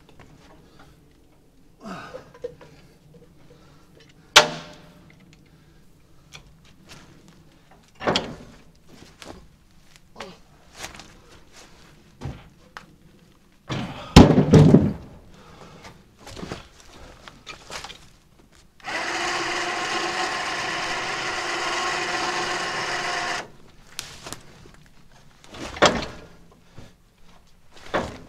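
Sawn firewood rounds landing with heavy thunks on a loaded truck bed as they are tossed aboard, several knocks spread out, the loudest about halfway through. Later a small motor runs steadily for about four seconds, starting and stopping abruptly.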